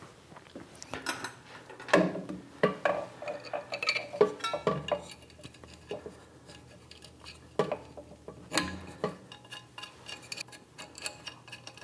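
Irregular metallic clinks, taps and light scrapes of hand tools and screws against the steel motor mounting plate while it is fastened to the lathe, with a few louder knocks among them.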